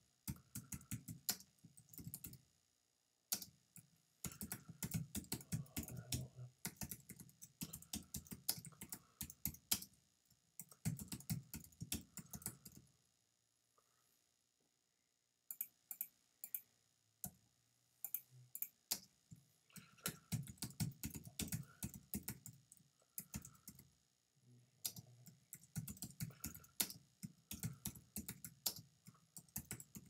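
Typing on a computer keyboard in quick runs of keystrokes, with a pause of a couple of seconds about halfway through.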